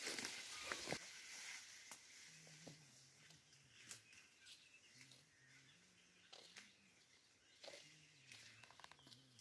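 Near silence on a brushy dirt footpath: faint scattered footsteps and rustling clicks in the undergrowth, with a faint low wavering hum from about two seconds in.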